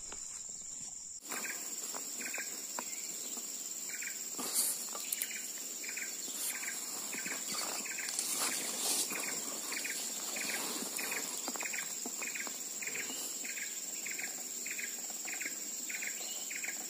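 Steady high-pitched drone of insects in tropical vegetation, with a regular series of short chirps about two a second running through it.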